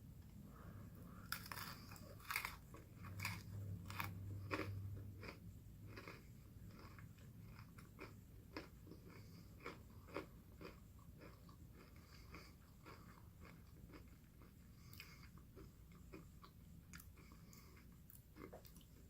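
Yogurt-covered pumpkin spice pretzels being bitten and chewed close to the microphone. A dense run of crisp crunches comes in the first several seconds, then thins to quieter chewing with scattered crunches.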